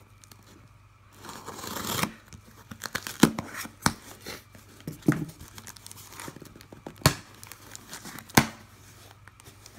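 Scissors slitting the packing tape on a cardboard shipping box: a rip that grows louder about a second in. Then several sharp cracks and snaps as the tape and cardboard flaps are pulled open.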